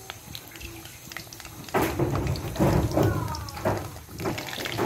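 Banana pieces frying in hot oil in a wok: faint crackling at first, then a loud burst of sizzling and spitting about two seconds in as more pieces go into the oil, easing off about a second before the end.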